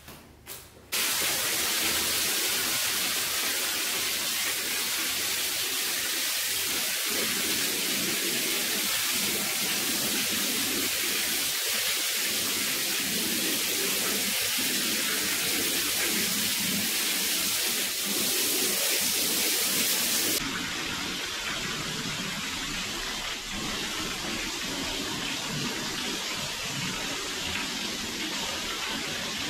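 Steady hiss of a water jet spraying onto a rug; the spray sound shifts and gets slightly quieter about two thirds of the way through.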